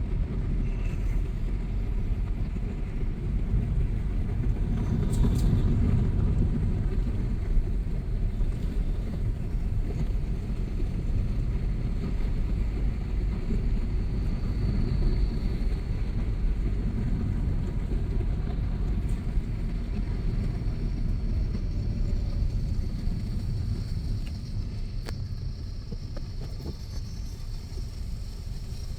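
Vehicle travelling over a rough off-road track: a steady low rumble that eases slightly near the end.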